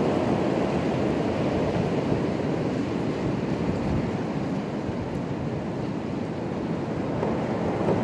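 Damaging high wind, gusting past 60 mph, rushing through bare trees as a steady roar. It eases slightly midway and builds again near the end.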